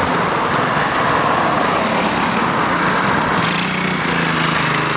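125cc pit bike's single-cylinder four-stroke engine running steadily as the bike is ridden, breathing through a makeshift bodged exhaust.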